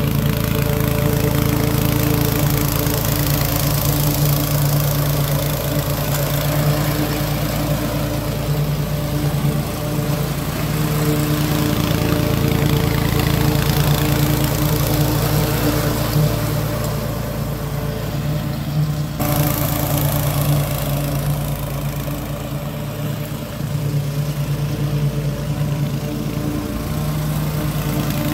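Toro TimeMaster 30-inch commercial walk-behind mower's engine running steadily under load as it cuts grass, with a slight change in its sound about two-thirds of the way through.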